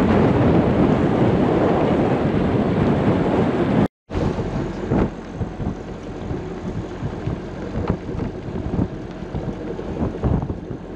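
Wind rushing over the microphone on a sailboat, loud and steady. About four seconds in it cuts abruptly to a quieter stretch of wind and water noise with a few brief knocks.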